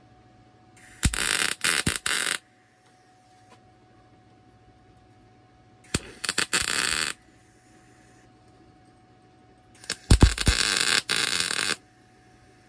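Electric arc welder laying three short tack welds on steel, each a crackling, sputtering burst of one to two seconds that stutters briefly, starting about a second in, near the middle and about ten seconds in.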